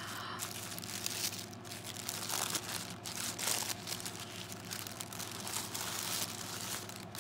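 Printed tissue paper crinkling and rustling as hands unwrap it and rummage through it in a small cardboard box, in uneven swells with no steady rhythm.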